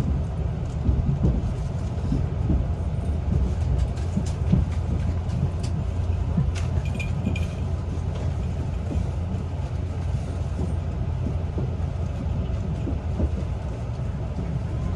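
Train running on rails: a steady low rumble with scattered light clicks, and a brief high squeal about halfway through.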